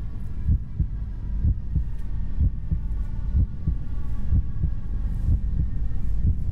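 Soundtrack heartbeat effect: low, regular thumps about two a second over a faint steady drone.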